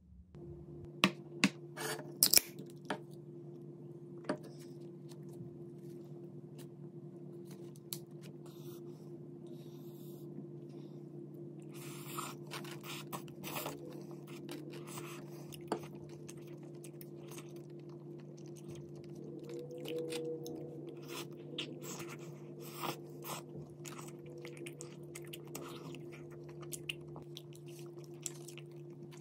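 Close-up eating sounds of leftover cheese pizza: slices pulled apart by hand, the crust crunched and chewed, with a few sharp clicks and taps in the first few seconds. A steady low hum sits underneath.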